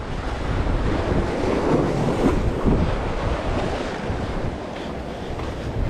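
Sea surf washing against rocks, with wind rumbling on the microphone.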